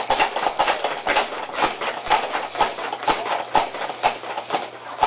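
Baby activity jumper clattering and creaking in a steady rhythm, about two knocks a second, as a baby bounces in it.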